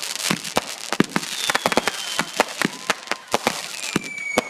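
Fireworks going off: a rapid run of sharp bangs and crackles, with two whistles that fall slowly in pitch.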